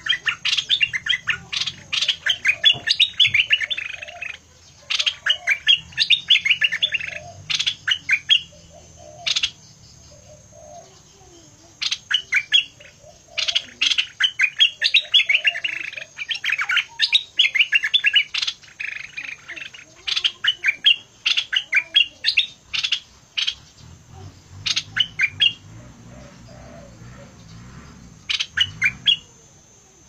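Caged songbird singing energetically: fast, sharp chirping phrases in bursts of one to four seconds, separated by short pauses, over a thin steady high-pitched tone.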